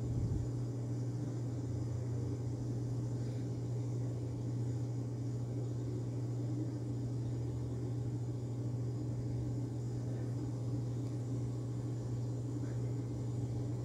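A steady low background hum, even in level throughout.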